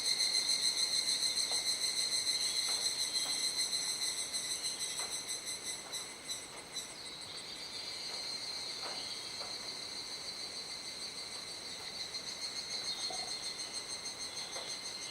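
Cicadas calling in chorus: a steady, high, rapidly pulsing buzz that dips about halfway through and then carries on slightly quieter.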